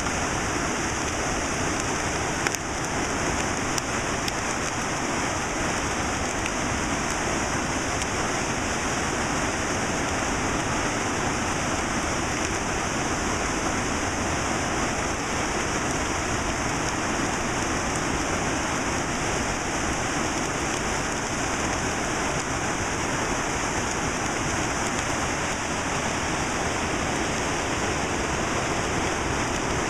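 Fast whitewater river rushing over rocks, a steady noise without a break, with one brief tap about two and a half seconds in.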